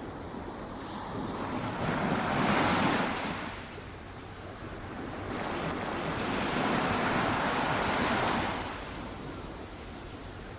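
Small, gentle ocean waves breaking and washing up on a sandy beach: one wave swells and breaks about two to three seconds in, and a longer wash follows from about halfway to near the end.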